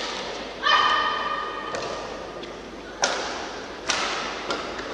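Badminton rally: sharp racket-on-shuttlecock hits, one after another about a second apart, each echoing briefly in the hall. Near the start a shoe squeaks on the court floor for about a second.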